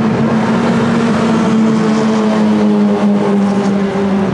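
Racing touring-car engines running hard as cars race around the circuit, a steady engine note that sinks slightly in pitch about halfway through.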